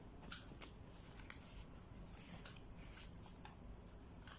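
Faint rustling and crinkling of a small slip of paper being handled and folded by hand, with short irregular crackles.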